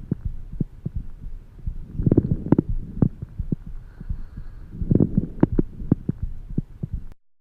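Lung sounds heard through a stethoscope: a breath about every three seconds, each a rush of low noise, with many short sharp clicks scattered through it. The recording cuts off near the end.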